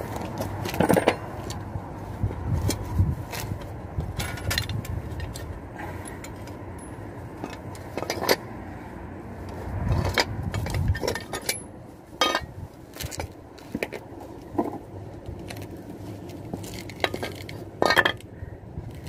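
Irregular metallic clinks, knocks and scrapes as steel drum-brake shoes and a brake drum are handled and set down on concrete, over a steady low background rumble.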